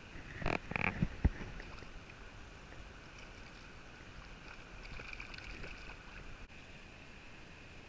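Hooked trout splashing and thrashing at the river's surface, a cluster of loud splashes about half a second to a second and a half in and more around five seconds, over the steady rush of the river.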